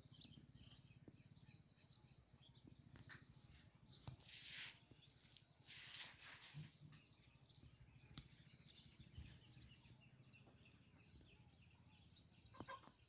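Faint countryside ambience of insects and birds: a steady high-pitched insect chirring throughout, with a louder rapid trill for about two seconds near the middle and a few soft calls.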